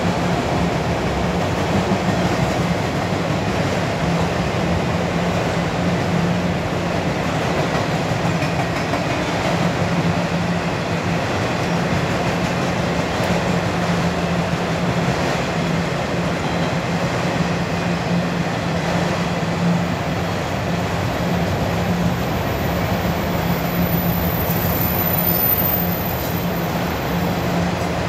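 Autorack freight cars of a CSX train rolling past at steady speed: a continuous rumble of steel wheels on rail with some clickety-clack. A faint high whine joins from about twenty seconds in.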